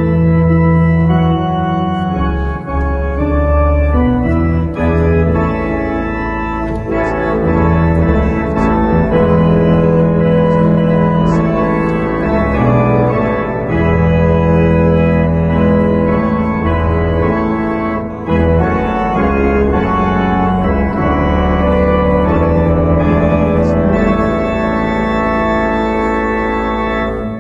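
Organ playing music in sustained chords.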